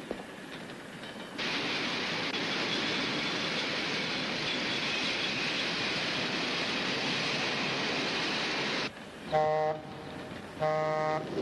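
A train running at speed, a steady rushing noise that starts about a second and a half in and stops suddenly near the end. Then the train's horn sounds twice in two short blasts.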